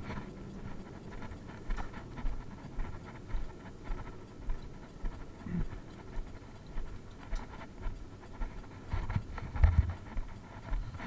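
Footsteps of a person walking at a steady pace, about two steps a second, with a louder scuffle of steps near the end.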